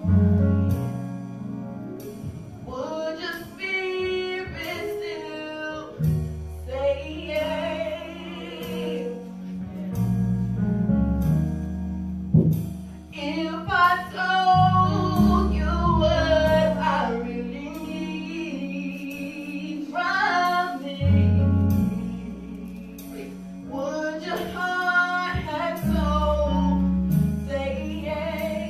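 A woman sings a gospel song into a microphone in long phrases with vibrato, over sustained low instrumental chords that change every few seconds.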